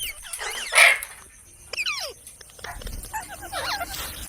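Pet parrot making short whistled chirps and sliding calls, with one loud harsh squawk a little under a second in.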